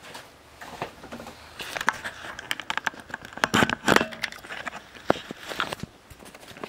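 Handling noise of a camera being picked up and carried: irregular clicks, knocks and rustling, loudest about halfway through.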